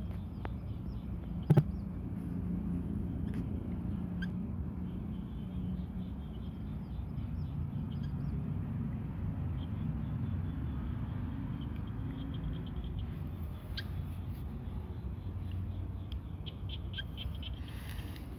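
Cat eating dry kibble, with a quick run of small crunches near the end, over a steady low background rumble. There is one sharp click about a second and a half in.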